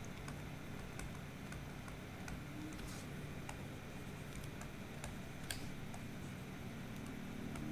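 Quiet room tone: a steady low hum with scattered faint, irregular clicks.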